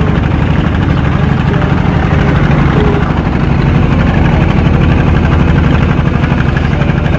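Small tourist boat's engine running steadily under way, loud and close, with a low, even drone.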